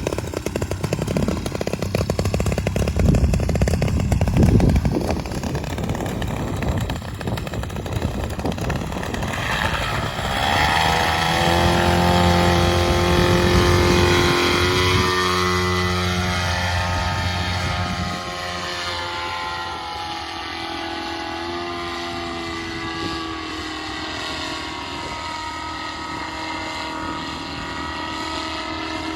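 Paramotor engine and propeller, with wind buffeting the microphone in gusts over the first several seconds. About ten seconds in the engine throttles up to a steady high-revving drone. After about eighteen seconds it turns quieter, its pitch wavering.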